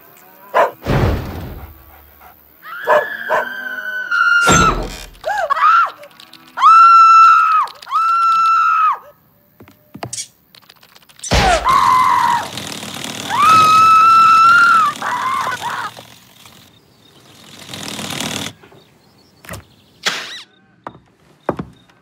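Cartoon sound effects: scattered thuds and knocks, and several loud, high-pitched held notes of about a second each, in pairs around a third of the way in and again past the middle.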